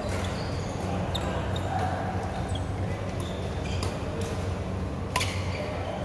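Badminton rackets striking a shuttlecock with sharp cracks, the loudest about five seconds in, among short high squeaks of court shoes on the hall floor, over a steady low hum.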